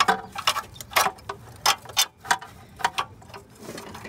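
Ratchet wrench clicking as a mounting-bracket bolt is worked loose, sharp clicks about three a second, unevenly spaced.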